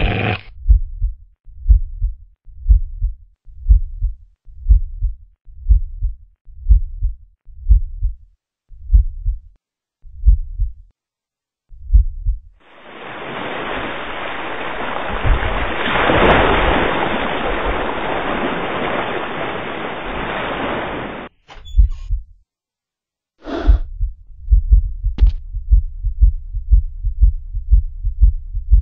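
Heartbeat sound effect: low thumps, slowing from about one a second to more than a second apart, then a long hiss that cuts off suddenly. After a few clicks the heartbeat comes back faster, about two beats a second.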